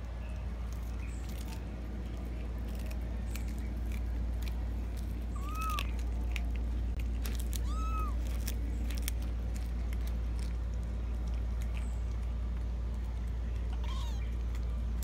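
Cats eating tilapia, with sharp chewing clicks throughout and three short meows, each rising and falling in pitch.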